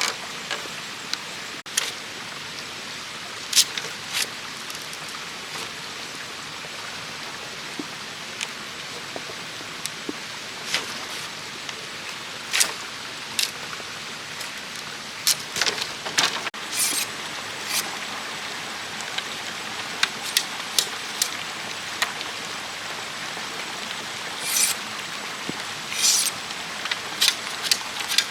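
A steady even hiss with scattered sharp clicks and knocks, a couple of dozen at irregular intervals, some coming in quick clusters.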